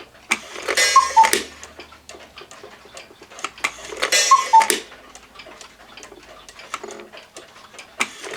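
Small one-day (30-hour) hunter cuckoo clock calling the hour: two two-note cuckoo calls, each with the rush of its bellows, about three seconds apart, over the clock's steady ticking. A third call starts right at the end.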